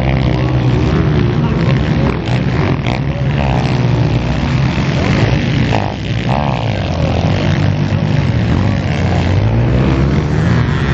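Motocross bike engines revving hard on the track, the pitch rising and falling as the bikes take the jumps.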